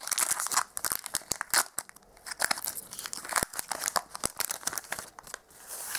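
Foil wrapper of a Pokémon trading card booster pack crinkling and tearing in the hands as the pack is ripped open and the cards are pulled out: a dense, irregular crackle.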